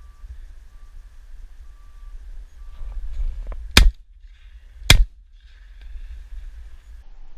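Two shotgun shots from a Browning, about a second apart, at a wood pigeon in flight; the second barrel is fired out of nervousness, to no effect. A low rumble runs underneath.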